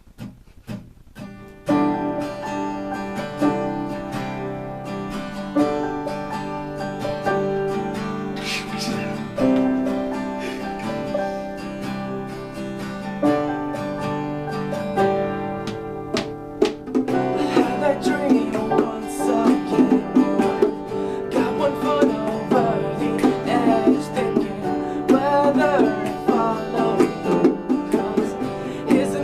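Acoustic guitar music: a few soft strums, then full chords about two seconds in. The playing grows louder and busier about seventeen seconds in.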